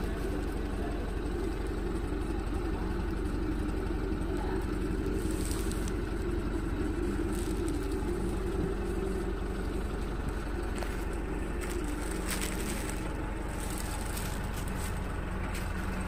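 Tata 407 minibus's diesel engine running steadily, heard from inside the cabin as an even low hum.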